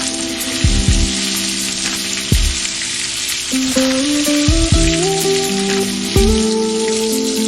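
Food deep-frying in hot oil, a steady crackling sizzle, under background music with a stepping melody and a regular low beat.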